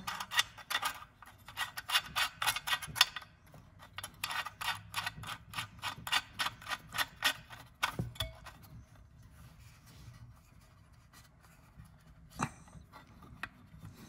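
Small metal parts clicking and rubbing as a cigarette lighter socket is fitted into a metal ashtray housing and its retaining shell screwed on by hand: two runs of quick, even clicks over the first half, then quieter handling with a couple of single knocks.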